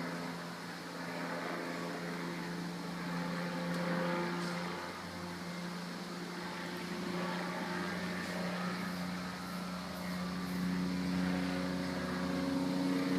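Helicopter flying low overhead: a steady drone of rotor and engine that swells and fades, growing louder near the end.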